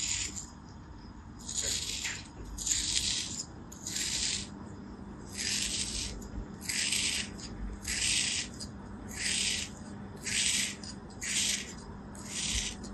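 A thin blade slicing through a moulded ball of packed kinetic sand, each cut a short gritty scrape. There are about eleven cuts, roughly one a second.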